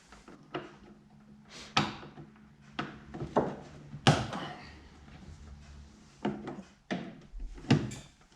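Scattered clicks and knocks of hands working inside a car door: the door handle linkage being fitted to the lock from behind. About eight sharp hits, two of them loud, at about 2 s and 4 s.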